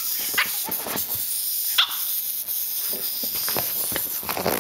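Boston terrier puppy barking in a few short, high yips.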